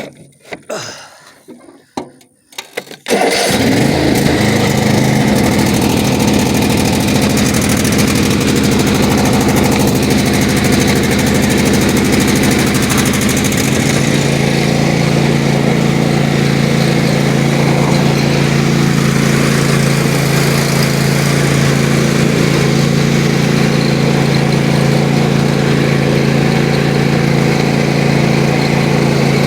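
Riding lawnmower engine starting abruptly about three seconds in, then running steadily. About halfway through, its note shifts and then holds steady again.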